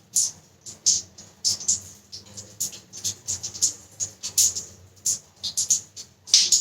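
Short, irregular sputters and splashes, about two to three a second, from a neti nasal rinse: salt water poured into one nostril runs out of the other while the person breathes through the open mouth. A louder, longer sputter comes near the end.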